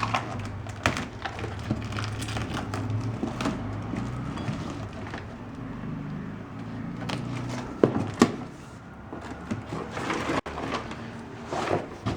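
Irregular knocks and clicks from the parts of a folding sanitizer dispenser stand being handled and unpacked, with a faint low hum under them.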